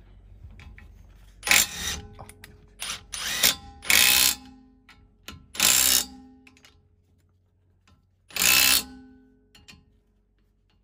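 HiKOKI 36V cordless impact wrench running in six short bursts of about half a second each, spinning nuts onto the wheel spacer's studs.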